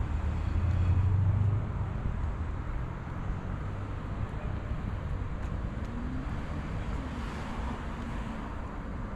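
Road traffic on a city street: a low rumble, loudest over the first second and a half, then settling into an even traffic hum.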